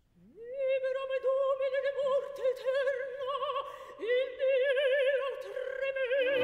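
A single high operatic voice singing long held notes with wide vibrato, sliding up into the first note. An orchestra comes in at the very end.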